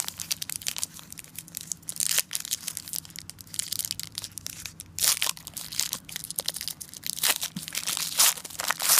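Foil wrapper of a football trading card pack crinkling and tearing as it is opened by hand: a dense, irregular crackle, heavier about five seconds in and again near the end.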